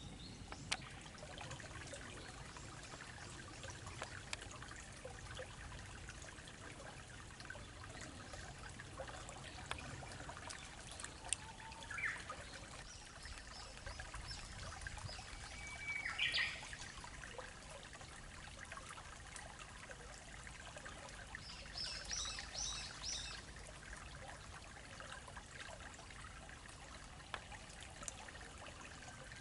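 Water trickling in a small, slow-flowing river, with short bird calls a few times and a quick run of high chirps about two-thirds of the way through.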